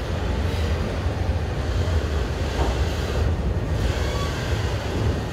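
Freight train of autorack cars rolling past, a steady low rumble of wheels on rail.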